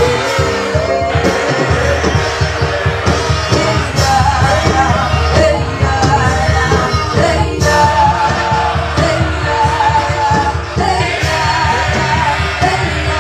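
Live gospel worship music: a band with drums and guitar playing, and voices singing.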